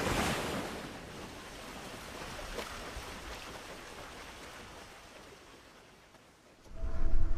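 Rushing surf-like sound of ocean waves that swells at the start and slowly fades away. Near the end a music intro comes in with steady tones and a low pulse.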